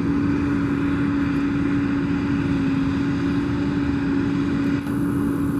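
Combine harvester running steadily while harvesting soybeans: an even engine and machinery drone with a constant hum.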